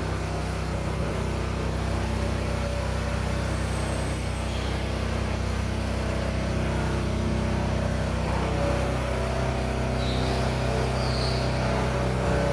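An engine running steadily at idle, an even low-pitched drone whose tone shifts slightly about eight and a half seconds in.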